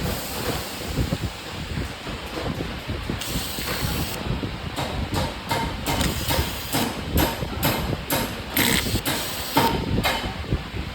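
Quick irregular mechanical clicks and rattles of small hard parts being handled, growing busier about four seconds in, over a steady low rumble like wind on the microphone.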